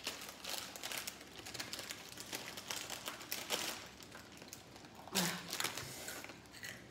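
Crinkling and rustling of a plastic snack packet as it is tipped up and shaken to empty the last bits into the mouth, in quick crackles, louder about five seconds in.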